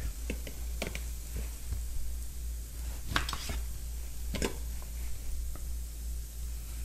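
Chef's knife cutting Brussels sprouts on a cutting board: a few sharp, unevenly spaced knife taps on the board, over a steady low hum.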